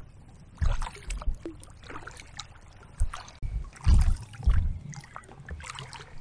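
Kayak paddle strokes: the blades dip and splash in the water several times at uneven intervals, each with a low buffeting rumble on the microphone.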